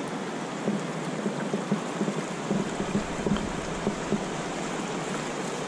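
Shallow river running over stones and pebbles: a steady rush of water with small irregular splashes and gurgles.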